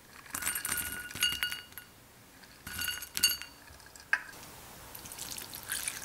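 Crunchy granola clusters tipped from a glass jar clattering into a ceramic bowl in two rattling bursts, with ringing clinks of glass against the bowl and one sharp click about four seconds in. Near the end, milk starts pouring onto the granola.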